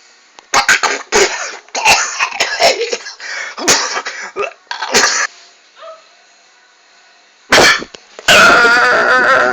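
A man's exaggerated sneezes and coughs: a rapid string of sharp bursts for about five seconds, a pause, then another short burst and a longer, loud wavering vocal outburst near the end.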